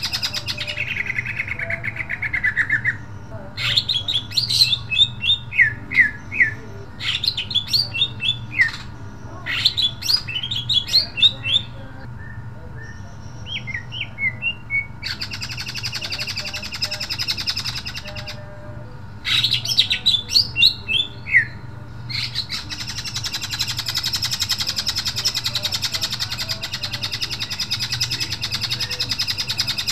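Caged cucak ijo (green leafbird) singing. It opens with a long falling whistle, then gives volleys of sharp, quick sweeping notes, and breaks twice into a dense, rapid chattering warble: once about halfway through and again, without pause, for the last third. A steady low hum runs underneath.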